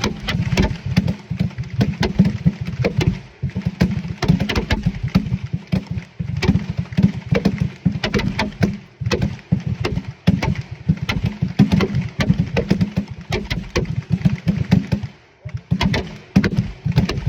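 A rapid, overlapping string of black-powder percussion revolver shots from a firing line of shooters, several shots a second, with a brief lull near the end.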